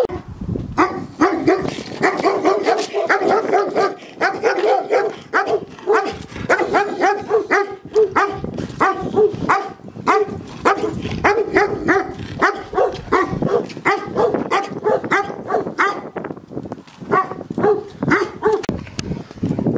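Shepherd dogs barking in a fast, unbroken run of sharp barks, two to three a second.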